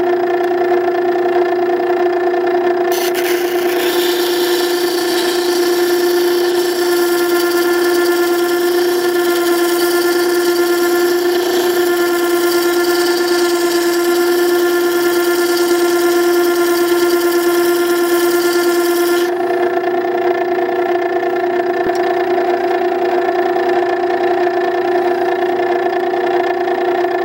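Makita 9820 electric water stone running with a steady hum. From about three seconds in, a steel chisel is held freehand against the coarse wet wheel, adding a grinding hiss. The hiss stops about nineteen seconds in as the chisel comes off the wheel, while the motor keeps running.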